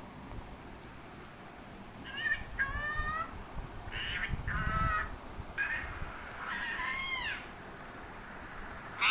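A parrot calling: a run of five or six short calls, some gliding up and down in pitch, starting about two seconds in. A brief, louder call comes right at the end.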